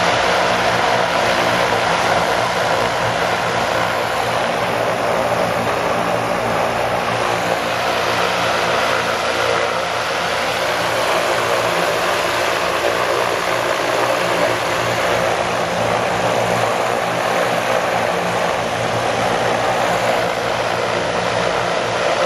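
Zeppelin NT airship's propeller engines running steadily on the ground: a continuous engine and propeller sound with a steady low hum.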